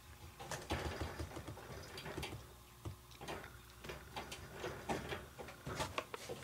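Faint, irregular light scratching, tapping and rustling of kittens moving about on corrugated cardboard scratchers and boxes.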